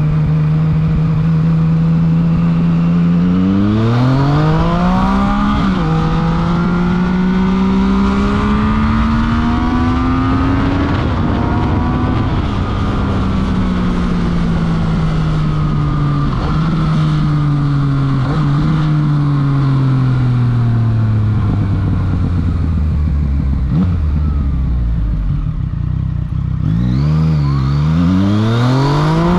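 Yamaha FZ-09's inline three-cylinder engine through a full Akrapovič exhaust, heard from the rider's seat on the move. It revs up hard a few seconds in with a gear change, holds a cruise with the revs slowly rising, winds down gradually for a long stretch, then dips and revs up sharply again near the end, over a steady rush of wind.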